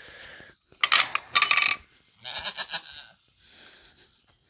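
Goats bleating: several wavering calls, the loudest pair about a second in, another near the middle and a fainter one late.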